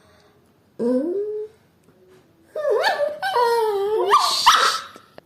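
Dog whining and yowling in pitch-sliding calls, begging for tea: one short rising whine about a second in, then a longer run of wavering calls from about two and a half seconds.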